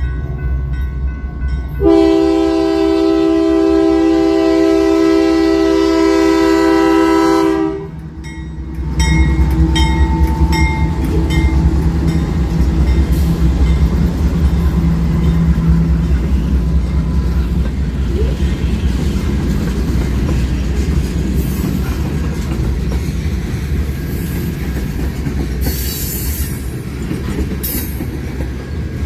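Locomotive air horn sounding one long chord of about six seconds, followed by the train rolling past with a steady low rumble and the clickety-clack of its wheels over the rail joints.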